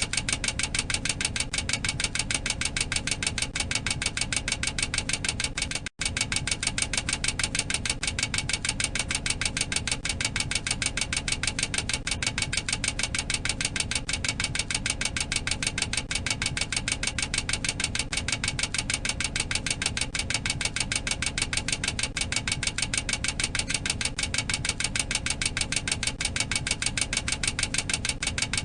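Boeing 737-800 cockpit overspeed warning clacker: a rapid, steady mechanical clacking that signals the aircraft is exceeding its maximum operating speed. It breaks off for a split second about six seconds in.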